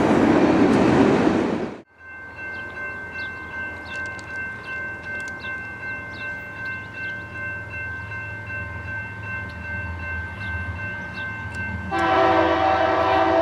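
A passing train's loud rumble cuts off about two seconds in. Then come a steady high ringing tone, a low rumble and scattered bird chirps. Near the end a diesel locomotive's multi-chime air horn blasts loudly.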